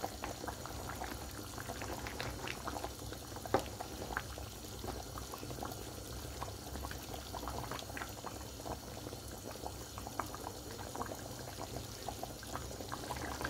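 A thick, saucy beef pochero stew simmering in a pot, with many small bubbles popping and plopping steadily. A single sharp knock about three and a half seconds in.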